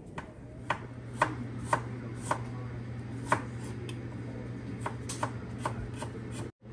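Knife chopping on a cutting board: about ten sharp strokes at an uneven pace, over a steady low hum.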